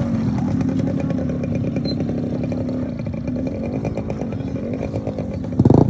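Motorcycle engine running at low revs with a slightly wavering pitch, then revved louder near the end.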